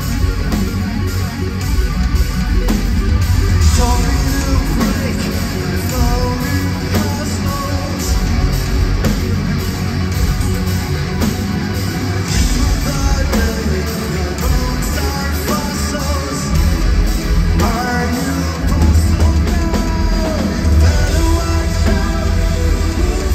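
Live progressive metal band playing loud: distorted guitar, bass, drums and keyboards, with a lead vocalist singing over them.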